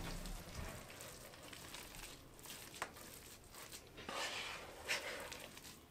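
Faint rustling of waxed paper and scraping of a plastic mixing bowl as sticky cookie dough is turned out onto the paper, with a sharp knock at the start and a few light taps.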